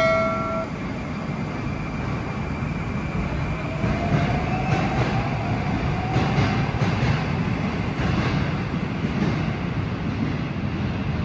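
Moscow metro train running in the station, a steady rumble with a faint whine that rises in pitch between about three and seven seconds in, as the train gathers speed. A steady electronic tone cuts off about half a second in.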